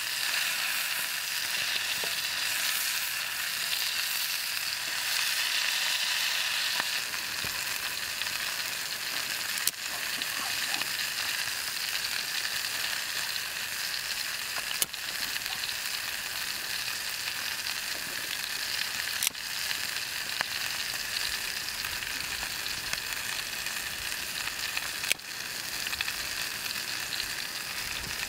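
Elk meat sizzling as it fries in a steel pot over a small wood-burning camp stove: a steady hiss, a little louder in the first several seconds. Four sharp clicks stand out across it.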